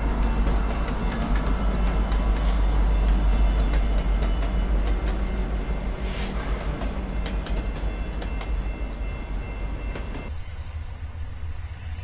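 Canadian Pacific freight train's diesel locomotives passing close by through a grade crossing: a steady engine and wheel rumble with scattered clicks, and a thin high squeal with two short bursts in the first half. About ten seconds in, the sound cuts to a duller, more distant train rumble.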